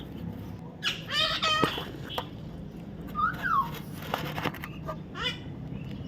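Baby parrot calling: a quick run of wavering squawks about a second in, then a short rising-and-falling chirp and a few brief calls after it.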